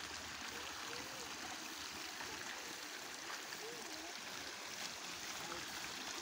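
Steady rush of water flowing through a small irrigation ditch.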